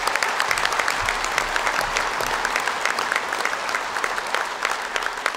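Audience applauding, a dense steady clatter of many hands that begins to thin out near the end.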